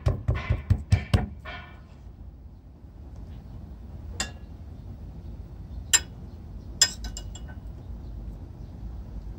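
A hand patting seasoning onto a raw salmon fillet on a wooden cutting board: soft wet slaps about three a second, stopping about a second and a half in. After that a low steady rumble, with three sharp clinks of utensils or dishes spread through the rest.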